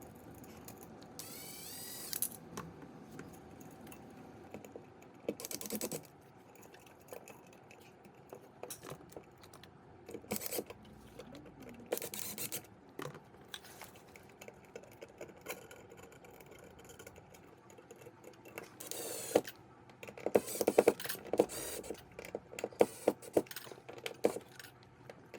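Clicks, taps and scraping of a screwdriver and metal screws as a GFCI outlet is fastened into its wall box. There are a few brief whirring bursts, one with a rising whine near the start, and a run of clicks near the end.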